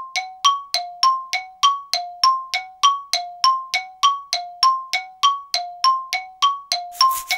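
Struck metallic dings in a steady tick-tock rhythm, about three a second, alternating between a higher and a lower note with a short ring after each stroke.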